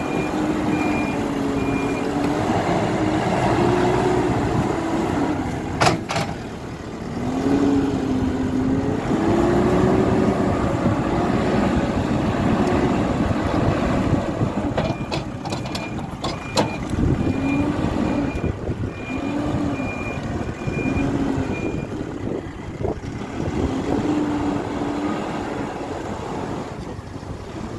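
Hidromek 102S backhoe loader's diesel engine revving up and down again and again as it works under load. Its reversing alarm beeps about twice a second at the start and again for several seconds past the middle, and there are a few sharp metal clanks.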